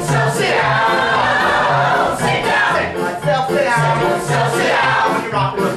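Mixed men's and women's ensemble singing an upbeat show tune together over a band, with a bouncing bass line and a steady drum beat.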